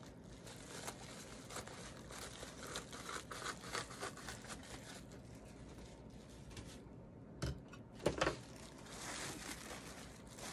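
Bubble wrap crinkling and rustling as it is handled, with faint crackles throughout and a few louder crinkles near the end.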